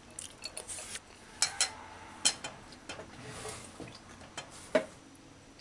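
Metal fork clinking and scraping on a plate while eating rice: a handful of separate sharp clinks with a short scrape between them.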